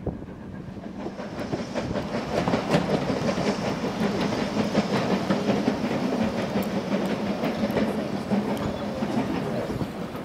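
Train running along the rails, its wheels clicking over the rail joints, with a steady low hum underneath; it gets louder about a second in.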